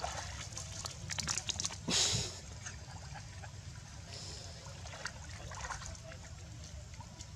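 Pond water splashing and dripping as macaques swim and climb out onto the rocks, with scattered small splashes and one louder splash about two seconds in.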